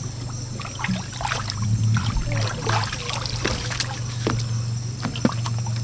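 Water trickling and splashing, with scattered light knocks and taps, over a steady low hum.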